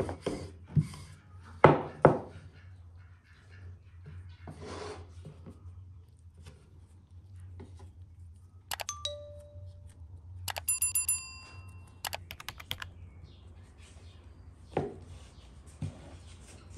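A wooden rolling pin knocks and rolls on a wooden dough board. About nine seconds in, a subscribe-reminder sound effect plays: a click with a short tone, then a quick run of clicks under a bright bell-like chime that rings for about two seconds.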